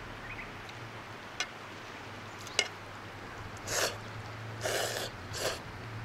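Three short breathy mouth sounds of a person eating ramen, in the second half, over the steady rush of a river. Two light clicks come earlier.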